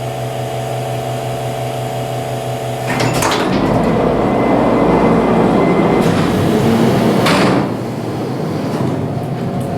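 Freight elevator's power doors opening: a steady machine hum, then about three seconds in a clunk, a loud noisy run of the doors with a faint high tone, and a clunk as they stop about seven and a half seconds in.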